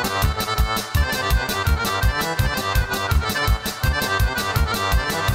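Fast Serbian folk dance music led by accordion, with violin, over a quick, even beat.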